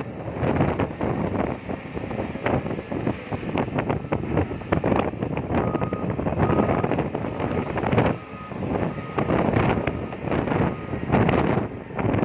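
Wind buffeting the microphone over the running and clatter of a shore excavator loading dolomite into a ship's hold. A few short beeps sound in the middle.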